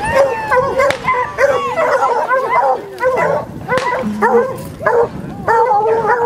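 Several hounds baying and yelping excitedly in a rapid, overlapping run of short high calls.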